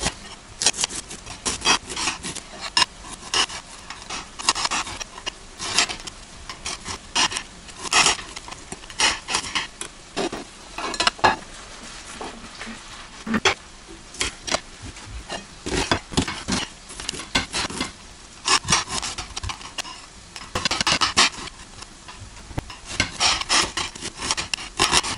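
A blunt kitchen knife slicing an onion on a flat ceramic plate: many irregular clicks and scrapes as the blade strikes and drags across the plate, thinning out briefly around the middle.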